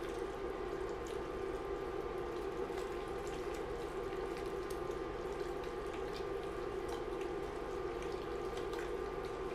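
A spoon stirring thick, cheesy macaroni and ground beef in an enameled pot, wet squelching with small ticks of the spoon, steady throughout. Under it runs the steady hum of the induction cooktop, which is still on.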